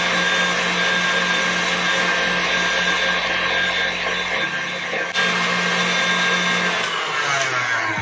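Electric stand mixer running, its wire whisk beating cake batter in a steel bowl with a steady motor whine. About seven seconds in, the motor pitch falls away as the mixer slows down.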